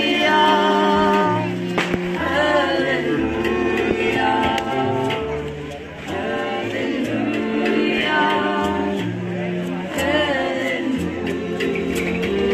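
Several voices singing together with a small band, over a double bass line and light drum taps.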